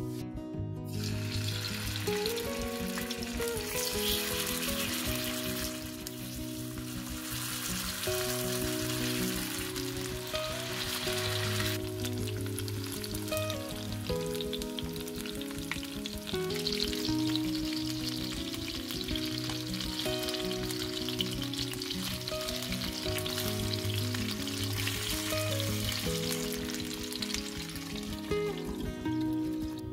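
Chicken wings sizzling as they fry in hot oil in a non-stick pan, a steady sizzle that starts about a second in, over background acoustic guitar music.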